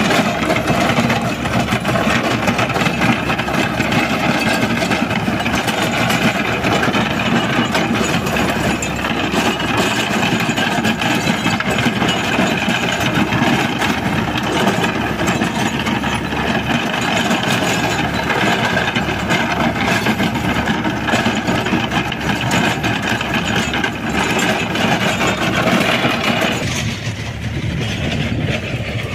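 A Mahindra Sarpanch tractor's diesel engine runs steadily under load while its PTO-driven Shaktiman rotavator churns dry soil, with a continuous rattling clatter from the tiller. The sound turns duller near the end.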